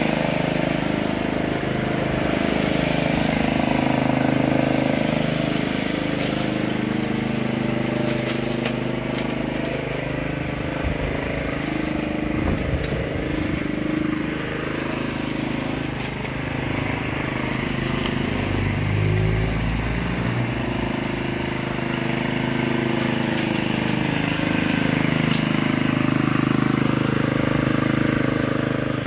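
Walk-behind petrol lawn mower engine running steadily while being pushed across grass, its note shifting a little as the load on the blade changes.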